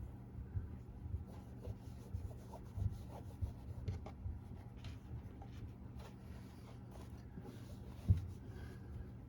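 Hands rubbing and pressing a freshly glued lining piece down onto a safe's interior, a run of soft, irregular rubbing strokes with light knocks and one firmer thump about eight seconds in.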